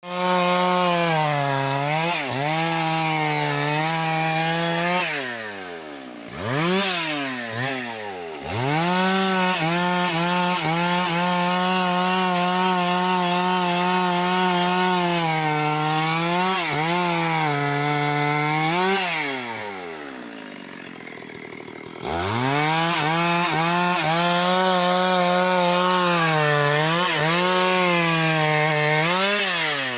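Petrol chainsaw cutting through a big tree, run mostly at full throttle. The throttle is let off briefly a few times, and twice for a few seconds so the engine drops toward idle, once with two quick revs in between, before it goes back up to full speed.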